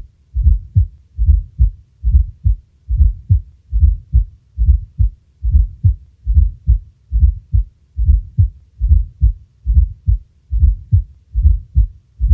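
Heart sounds heard through a stethoscope at the cardiac apex of a man with heart disease: a regular, low beat at about seventy a minute, with a fourth heart sound (S4, atrial gallop) just before each first sound. That extra low sound marks a stiff, poorly compliant ventricle filling as the atria contract.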